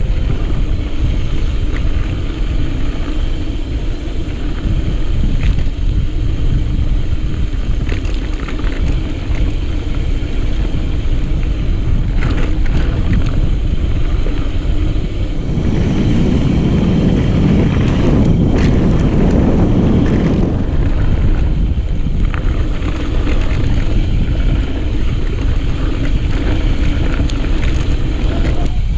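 Mountain bike riding over a rough, rocky trail. Wind buffets the microphone, and the bike and tyres rattle and knock over the rocks. The rush grows louder for a few seconds past the middle.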